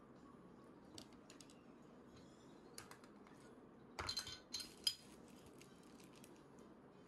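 Faint tableware clicks as a child eats: a couple of small taps, then a short cluster of louder clinks a little after four seconds, from the plate and food being handled at the table.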